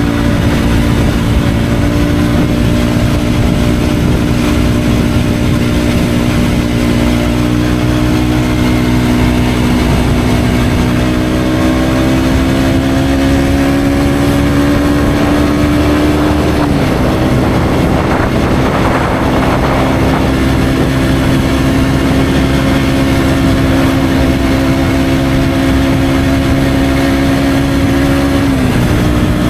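KTM Duke 125's single-cylinder engine through an Akrapovic exhaust, pulling under steady acceleration with its note climbing slowly. The pitch drops sharply at an upshift about halfway through, then climbs again, with another shift near the end.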